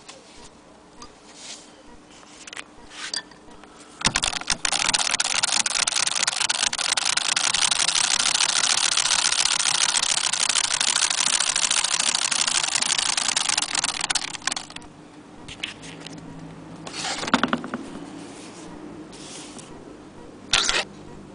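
1870 Maxfield Agenoria sewing machine stitching through fabric: a fast, even mechanical clatter that starts about four seconds in, runs for about ten seconds, then stops. A few separate clicks and knocks come before and after it.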